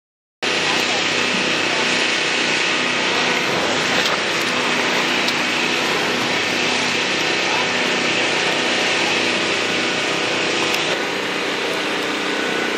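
A small engine running steadily with a constant pitch. It cuts in abruptly about half a second in, and its high end drops slightly near the end.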